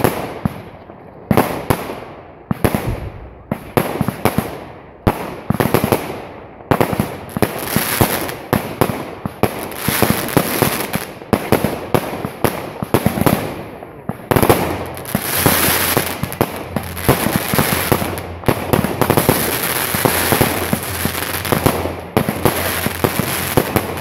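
Aerial fireworks bursting in quick succession: a run of sharp bangs, roughly one or two a second, giving way about halfway through to denser, near-continuous crackling and popping.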